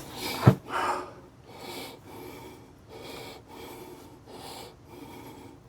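A man breathing hard and fast, puffing in short repeated breaths while straining to lift a heavy dozer brake assembly. A single sharp thump about half a second in is the loudest sound.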